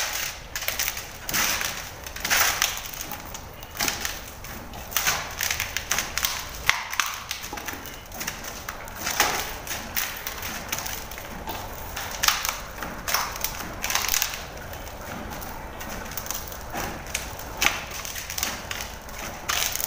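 Wheat dough being kneaded by hand in a stainless-steel bowl: irregular thumps and knocks as the fists press into the dough and the bowl shifts, about one every second or so.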